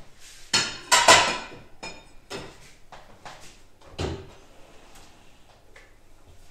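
A few scattered knocks and clatters of things being handled, the loudest a short clatter about a second in and another knock about four seconds in.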